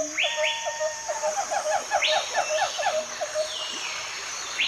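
Jungle ambience: a steady high insect buzz with bird calls, a run of quick repeated chirps for about three seconds and a few short sweeping whistles.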